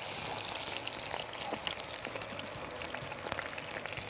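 Hot oil sizzling in a frying pan as a skin-on stuffed chicken roll browns in it, a steady hiss with many scattered sharp pops.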